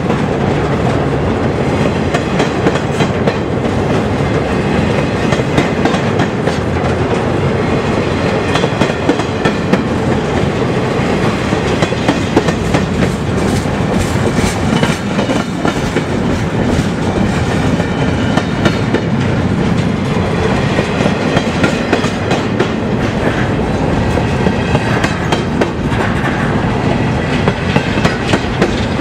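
Long freight train climbing a steep grade close by: a steady, loud rumble and rattle of the rolling cars, with frequent clicks and knocks of wheels over the rail joints.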